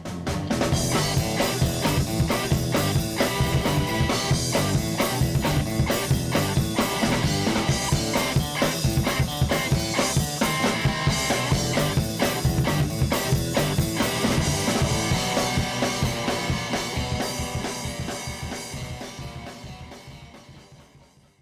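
Music with a drum kit keeping a steady beat, fading out over the last few seconds.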